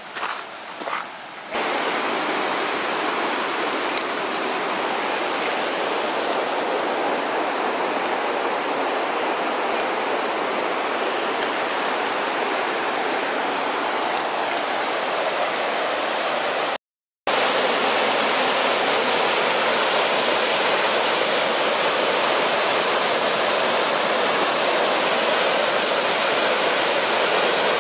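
Footsteps on a gravel path for about the first second and a half, then the steady rush of a fast mountain stream tumbling over rocks. The rushing cuts out to silence for a moment about two-thirds of the way through, then carries on unchanged.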